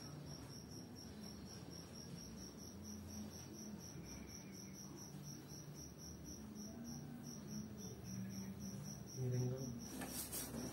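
Faint, steady insect chirping at an even pace of about four chirps a second, over a low hum. Near the end come a short low sound and a few knocks and rustles.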